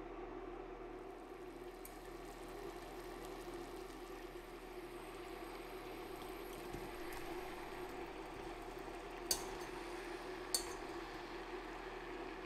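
Berry syrup boiling in a stainless steel saucepan, a steady bubbling, with two sharp taps a little over a second apart near the end as berries are tipped in from a mesh sieve.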